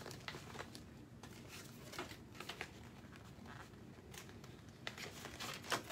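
Faint rustling and crinkling of clear plastic packaging being handled, in scattered short crackles, a little busier near the end.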